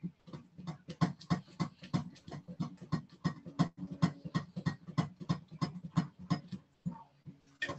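A utensil beaten quickly by hand in a mixing bowl, about four strokes a second, as cheesecake batter is mixed; the strokes thin out near the end, with one last sharp knock.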